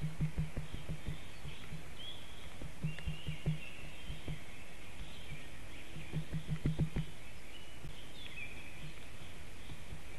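Small songbirds chirping and whistling in the surrounding forest, with clusters of low thumps and knocks, loudest about six to seven seconds in.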